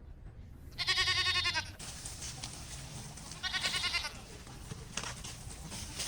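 Goat bleating twice: a wavering call about a second long, then a shorter one about two seconds later.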